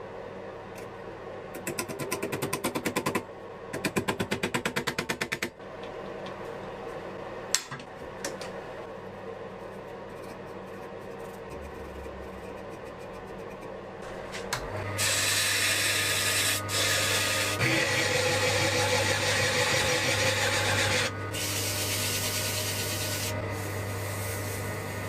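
Two short bouts of quick back-and-forth filing or sanding strokes on metal, then, about halfway in, an electric power tool starts and runs steadily with a low motor hum and a loud grinding hiss until the end.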